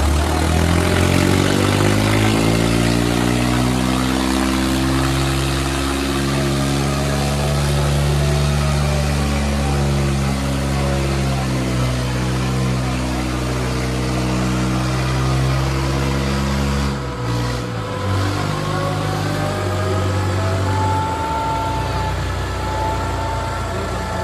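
Two tractor diesel engines, a Kubota 5501 and a New Holland 3600, running hard under heavy load as they pull against each other in a tug-of-war. They rev up in the first two seconds and hold steady, then the engine note drops and changes about 17 seconds in.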